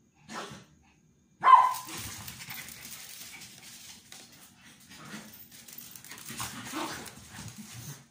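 A small dog barks sharply once about a second and a half in. Quieter, uneven play noises from the dogs follow.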